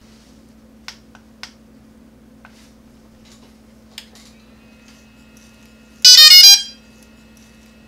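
DJI Phantom 3 Professional powering up. Two clicks of the battery power button come about a second in (a short press, then a press-and-hold). From about four seconds a faint steady whine sets in as the gimbal motors power up. Just past six seconds a short run of loud electronic start-up beeps sounds.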